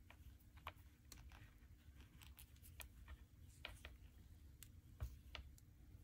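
Near silence: faint, irregular clicks and rustles of hands working yarn with a crochet hook, over a low steady hum.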